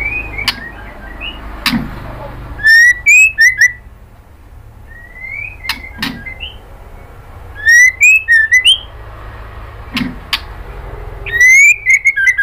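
White-rumped shama (murai batu) singing loud short whistled phrases, about four of them a few seconds apart. Each phrase is a rising whistle followed by a rapid run of high sweeping notes. Sharp single clicks fall between the phrases.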